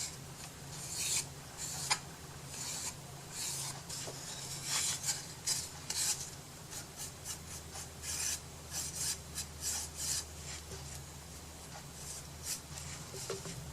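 Paintbrush strokes on the wooden edges of a box: a run of short, irregular scratchy strokes, a few a second.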